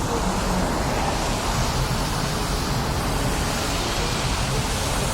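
Steady rush of wind buffeting the microphone, mixed with the noise of street traffic.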